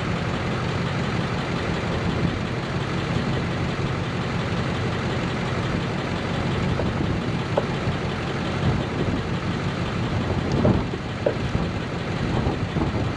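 A steady low mechanical hum, with a few light knocks and clinks about ten to twelve seconds in.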